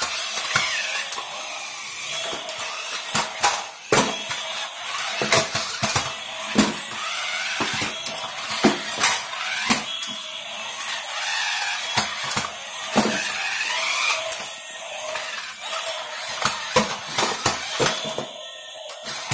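Toy radio-controlled stunt car's small electric motors whirring as it drives and flips, its plastic body knocking and clattering many times, with gliding electronic sound-effect tones from the toy.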